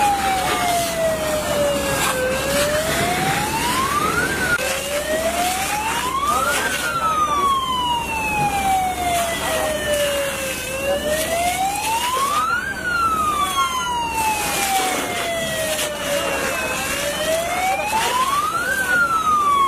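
Emergency vehicle siren wailing in slow cycles, each rising for about two seconds and falling for about four, over a steady hiss.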